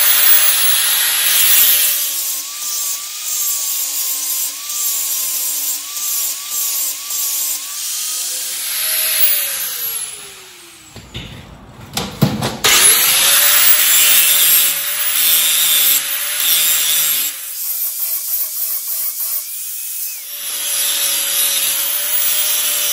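Electric angle grinder sharpening the hardened steel hammer-head blades of a flail mower: a steady whine with the hiss of the disc on steel. About ten seconds in, the grinder runs down, falling in pitch, then starts up again a couple of seconds later and goes back to grinding.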